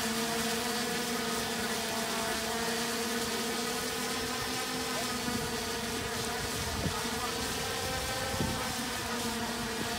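Homemade X-UAV Talon VTOL drone flying overhead: the steady buzzing hum of its electric motors and propellers, its pitch wavering slightly. A few bumps of wind on the microphone come late on.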